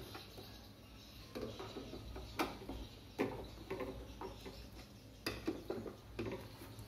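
Scattered clicks and light knocks of metal and plastic as a monitor's stand neck is handled and fastened onto the back of the monitor, about half a dozen sharp taps spread irregularly.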